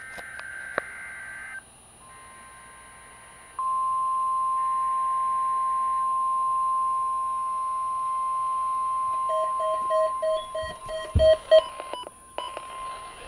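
NOAA Weather Radio receivers going off for a Required Weekly Test: brief screeching data bursts of the SAME alert header, then the long steady weather alarm tone from about three and a half seconds in. Near the end a receiver's own beeping alert pulses over the tone, with a couple of low knocks.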